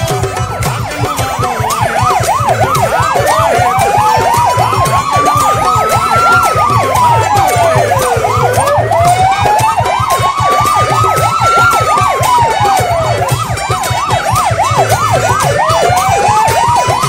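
Police vehicle sirens sounding together: a fast yelp warbling about four times a second over a slow wail that climbs and drops every five seconds or so, with a steady low throb beneath.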